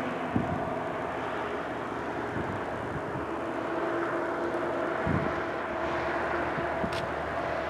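Steady hiss of torrential rain and gusting wind during a thunderstorm, with a steady mechanical hum underneath and a couple of low thumps of wind buffeting the microphone.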